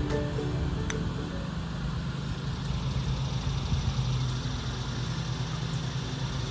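Steady low hum of an engine running, with one sharp click about a second in.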